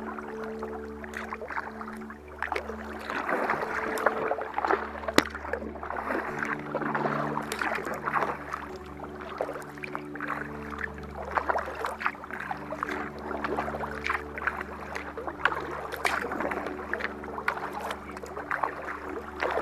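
Paddle strokes and water splashing and rushing along the hull of a Perception Conduit 13 kayak under way, with sharp splashes scattered throughout. Low sustained music chords run underneath.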